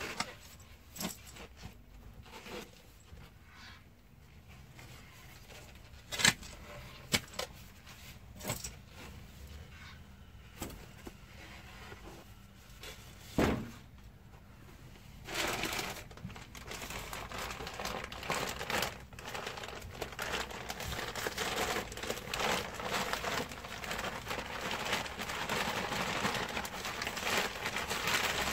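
Scattered knocks and scrapes of a spade working in stony soil, then from about halfway a steady crinkling rustle of plastic that grows a little louder toward the end.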